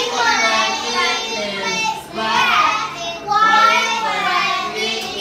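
Children's voices calling out at once, high and excited, overlapping without clear words.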